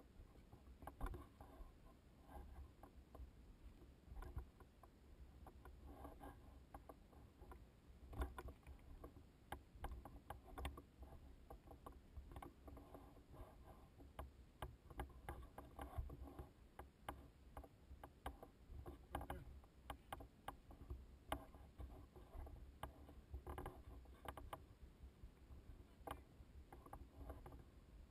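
Faint, irregular scuffs and knocks of a hiker's footsteps on rock and gravel, mixed with handling knocks from the pole-mounted GoPro, over a low rumble.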